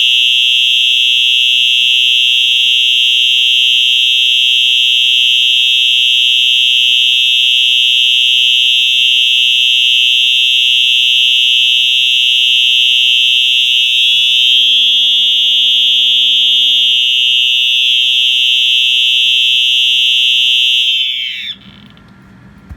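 Wheelock EHS-EL1 electronic fire alarm horn sounding a steady, continuous, very loud high-pitched tone. About 21 seconds in it stops, its pitch sliding down briefly as it dies away.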